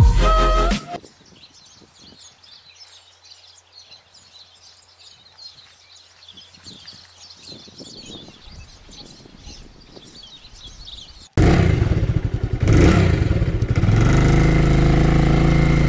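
Faint birds chirping for about ten seconds, then an abrupt cut to a vehicle engine running loudly and steadily.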